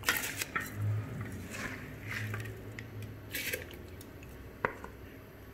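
Soaked rice being tipped from a bowl into a pot of boiling water, with a few short wet, slushy bursts in the first three and a half seconds and a single sharp click near the end, over a low steady hum.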